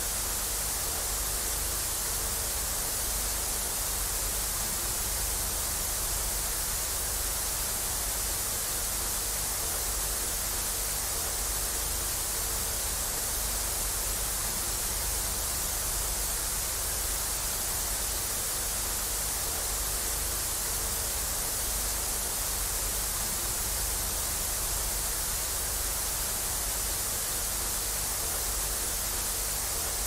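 Steady static hiss, unchanging throughout, heaviest in the high treble with a faint low rumble and a faint steady tone beneath.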